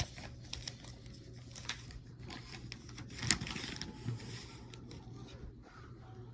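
Scattered light clicks and rustling, the sharpest click a little after three seconds in, over a faint steady low hum.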